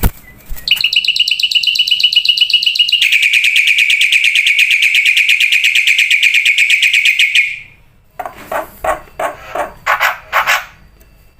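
Black-winged myna (jalak putih) song: a loud, fast buzzing trill that steps slightly lower in pitch about three seconds in and stops near seven and a half seconds, followed by a string of short harsh notes.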